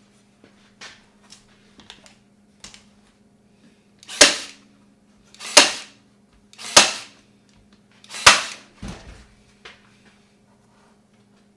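Staple gun firing four times, about a second or so apart, driving staples through stretched fabric into a wooden frame, with lighter clicks and rustles of handling before the shots.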